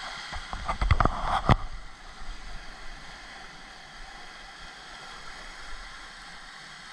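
Surf washing and breaking over a rocky shoreline. A brief cluster of sharp knocks and clatter about a second in is the loudest part, then the wash runs on steadily.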